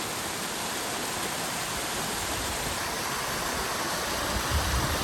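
Waterfall on a brook, a steady even rush of falling water.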